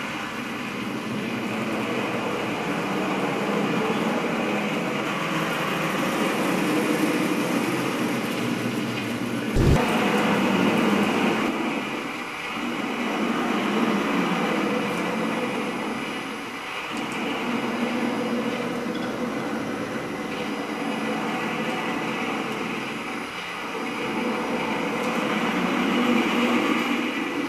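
Pintograph drawing machine running: its turntables turn and its linkage arms work steadily, a continuous mechanical rumble that swells and dips every few seconds. A single sharp click about ten seconds in.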